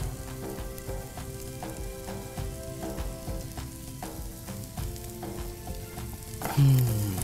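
Corn, cheese and egg bhurji sizzling in a frying pan over a low flame, with a spatula stirring and scraping through the mixture. Faint sustained tones sit underneath, and a brief louder low sound that falls in pitch comes near the end.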